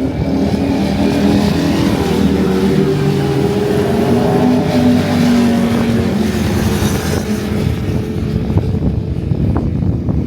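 Sport motorcycle engines running as riders pass on the racetrack, the note strongest in the first half and fading after about six seconds.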